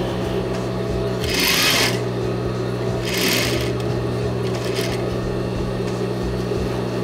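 Industrial straight-stitch sewing machine running as a seam is sewn, its motor humming steadily, with two short louder hissing bursts about one and a half and three seconds in.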